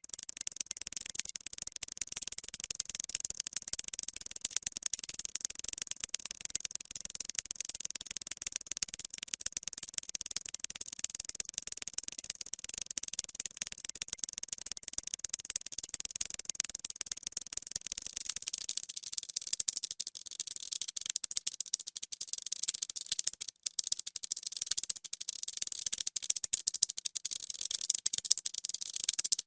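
Ants moving about their nest, heard as a dense, fast, high-pitched crackle and rustle that keeps going throughout, with one brief break about three-quarters through.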